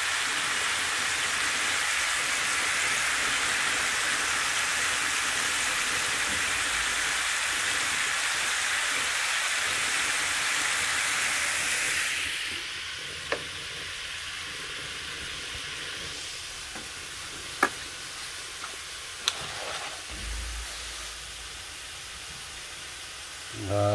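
Thin slices of pork neck sizzling steadily in an oiled frying pan. About halfway through, the sizzle drops away sharply to a faint background with a few light clicks.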